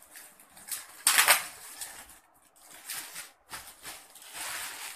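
Clear plastic packaging rustling and crinkling as it is cut and pulled open by hand, in irregular bursts, the loudest about a second in.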